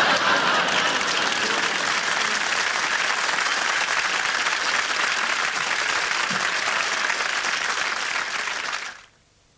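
Audience applauding, a dense steady clatter of many hands that cuts off suddenly about nine seconds in.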